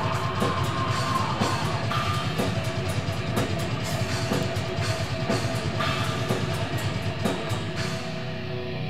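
Heavy metal band playing drum kit and electric guitar; the drums stop about eight seconds in, leaving the guitar chords ringing.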